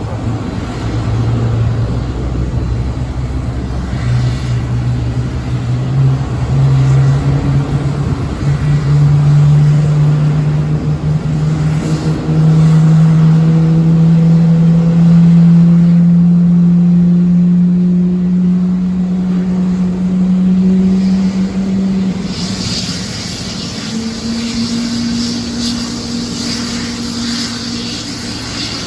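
GE90 jet engines of a Boeing 777-300ER, a loud, steady whine rising slowly in pitch as the engines spool up. Near the end the tone steps higher and a strong hiss joins it.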